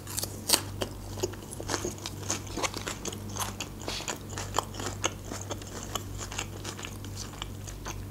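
Close-miked mouth sounds of eating: crunchy bites and chewing, made of many small irregular clicks and crackles. A steady low hum runs underneath.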